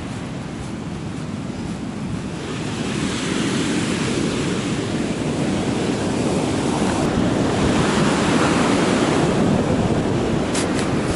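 Ocean surf breaking and washing up a sand beach: a steady rush of waves that grows louder a few seconds in.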